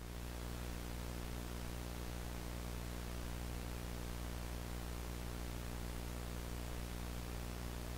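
Steady hiss with a low electrical hum underneath, unchanging: the static of a VHS-style tape playback effect.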